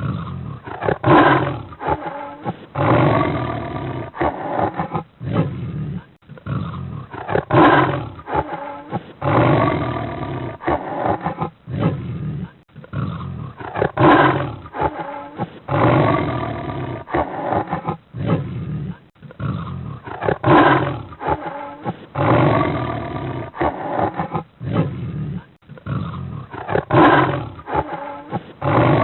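Cheetah calling: a run of pitched, roar-like growling calls that bend up and down in pitch, with short gaps between them. The same sequence repeats about every six and a half seconds, as a loop.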